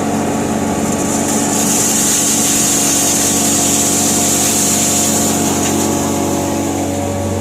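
Motor-driven hammer mill running steadily while grinding maize, a constant low hum under a high hissing rush that grows stronger from about a second and a half in and eases off near the end.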